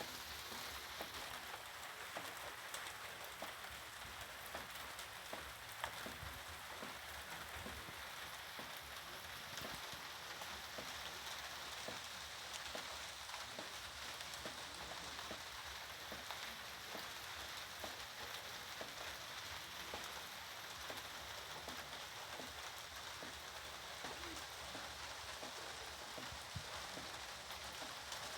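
Steady rain falling and pattering on surfaces, with a dense, even hiss and many small drop ticks.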